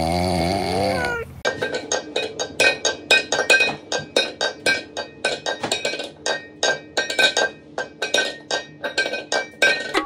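Rapid, irregular clinking and clanking of metal food bowls knocked on a countertop, ringing at a couple of fixed pitches, starting about a second and a half in. Before it, a short wobbling pitched sound effect cuts off.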